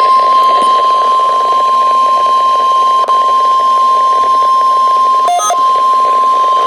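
NOAA Weather Radio 1050 Hz warning alarm tone, one steady loud beep over radio static, sounded as the weekly test of the alarm. About five seconds in it breaks off for a moment with a short lower blip, then carries on.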